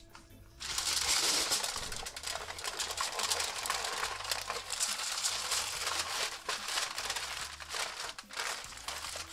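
Aluminium foil crinkling and crumpling as it is folded and crimped by hand around a whole fish. It starts suddenly about half a second in and goes on as a dense run of crackles.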